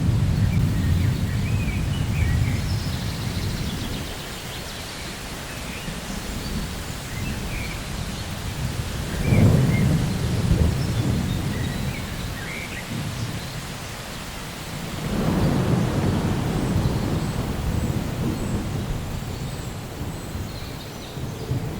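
Thunderstorm: rolls of thunder over steady rain. A rumble fades over the first few seconds, a sharper clap and rumble comes about nine seconds in, and another long roll builds about fifteen seconds in.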